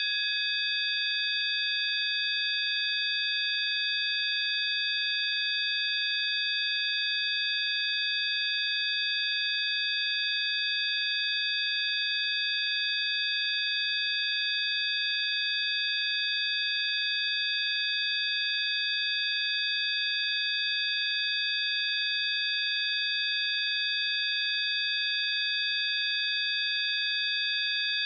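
Several steady, high-pitched electronic sine tones sounding together without change, a synthesized 'healing frequency' drone, with a faint hiss around them.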